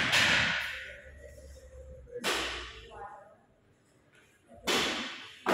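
An athlete's sharp, forceful breaths, one with each barbell lift: four hissy bursts about two seconds apart, each fading over half a second, with a short voiced grunt about midway.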